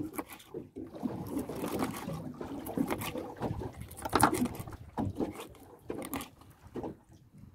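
Knives chopping and slicing fish on wooden cutting boards, making irregular knocks and scrapes. Under them runs a steady background of water and wind noise on a small boat.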